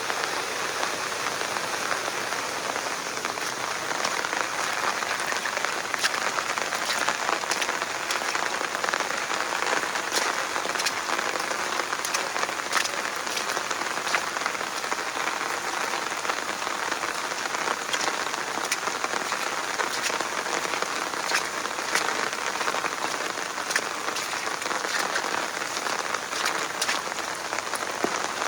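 Heavy rain falling steadily, with many sharp individual drops striking close by.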